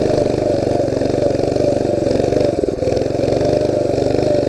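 Mini bike engine running steadily at speed, easing off briefly a little past halfway through.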